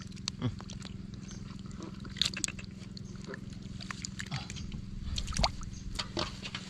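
Hands squelching and splashing in shallow muddy ditch water while grabbing slippery catfish, with scattered wet slaps and clicks, the strongest a couple of seconds in and again past the middle. A steady low hum runs underneath.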